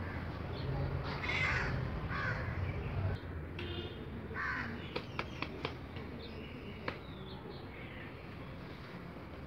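Crows cawing, a few short harsh calls in the first half, with a handful of sharp clicks about halfway through.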